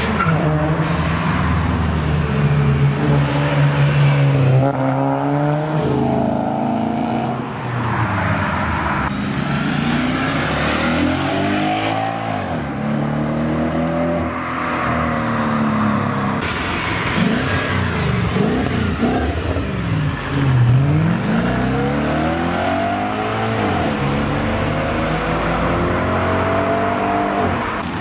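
Several performance cars' engines accelerating hard one after another, the revs climbing and dropping at each gear change, with cars passing close by.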